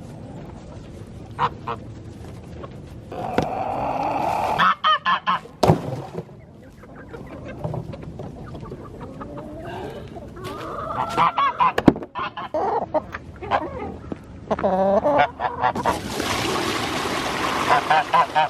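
Domestic poultry calling in several loud bouts, with a couple of sharp knocks and a hissing rush of noise near the end, as the birds are let out and fed.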